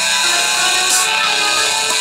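Electronic music played back in the Caustic 3 synthesizer app: held synth notes stepping in pitch, with a short noisy hit about a second in.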